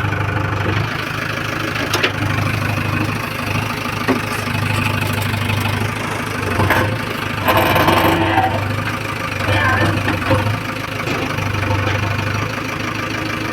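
An engine running steadily at idle, with scattered knocks and a louder, rougher stretch about eight seconds in.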